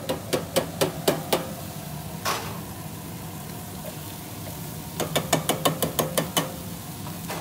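A metal can of beans rapped repeatedly against the rim of a steel cooking pan to knock the beans out: two runs of quick metallic taps, one at the start and one about five seconds in, with a short hiss in between over a steady low hum.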